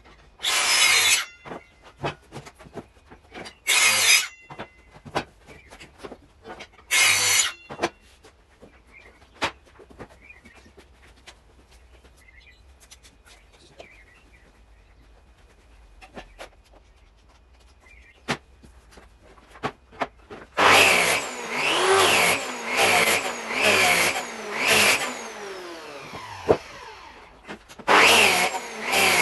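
Power tool working oak: three short loud bursts in the first part, a few knocks, then, about two-thirds in, the tool starts running in repeated bursts whose pitch rises and falls as the motor speeds up and slows.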